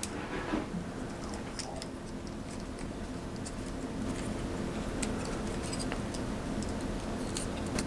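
Light, scattered clicks and ticks of small plastic toy parts as the legs of a 1/6 scale toy tripod are handled and worked into place, over a faint steady hum.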